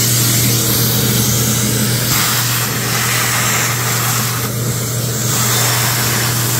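Vacuum cleaner running steadily with a low motor hum under a loud rush of air, its nozzle sucking wood dust and chips off a freshly CNC-carved wooden disc. The rush changes a little as the nozzle is moved, about two seconds in and again near five seconds.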